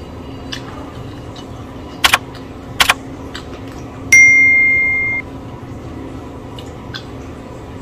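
Subscribe-button animation sound effect: two sharp mouse clicks under a second apart, then a click and a bright bell ding that rings for about a second and fades.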